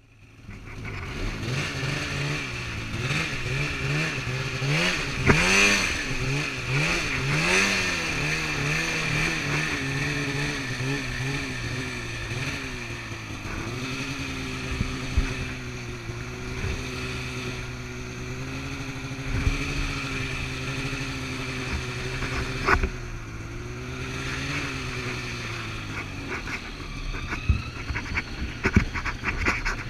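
Snowmobile engine under way, its pitch rising and falling quickly for the first several seconds as the throttle is worked, then running at a steadier pitch. There is a sharp knock around two-thirds of the way through and a rapid clatter of knocks near the end.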